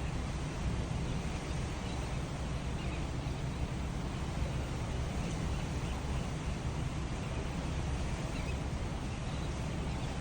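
Steady outdoor noise: a low wind rumble on the microphone with waterfront ambience, and a few faint bird calls now and then.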